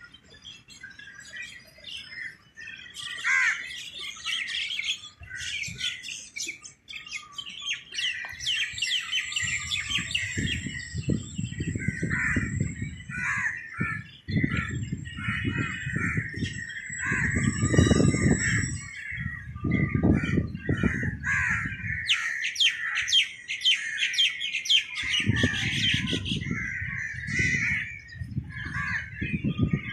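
Many birds chirping and calling together, with rapid trilling runs of quick chirps. Irregular bursts of low rumble come through the middle and again near the end.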